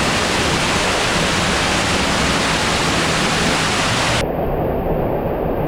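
Loud, steady roar of an underground waterfall in a cave. About four seconds in the hiss drops away abruptly, leaving a duller, lower rumble.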